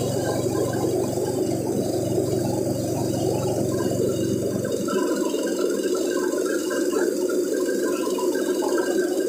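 KD 500 WG mini rice milling machine running, with a dense, steady rattle of grain passing through it. The low hum beneath the rattle drops out about five seconds in.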